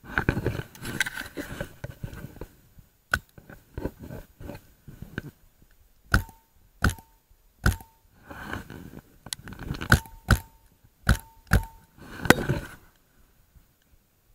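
Paintball marker firing a string of sharp pops, about a dozen, several with a short ringing tone after them, most of them between about six and twelve seconds in. Straw and gear rustle as the player moves against the bales at the start and again near the end.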